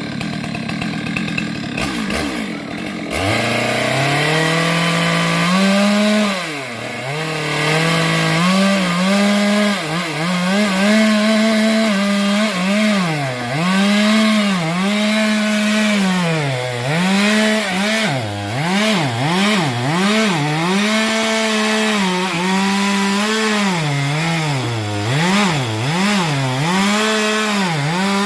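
Stihl MS 462 two-stroke chainsaw running at high revs while cutting sengon wood, its engine pitch dipping and recovering again and again as the chain loads up in the cut.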